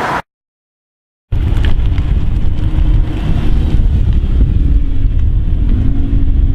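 Audi RS6 C7 Performance's twin-turbo V8 with a Milltek exhaust running at low, fairly steady revs under a heavy low rumble. The audio drops out for about a second near the start, and the note edges up slightly near the end.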